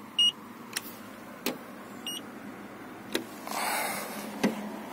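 Handheld paint-thickness gauge giving two short high beeps, each marking a reading as its probe is set on the car's body panel. Sharp clicks come as the probe touches the metal, and a brief rush of noise follows about three and a half seconds in.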